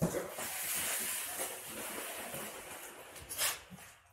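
Packaging rustling and scraping as the scooter is lifted out of its box, a steady hiss that fades out after about three seconds.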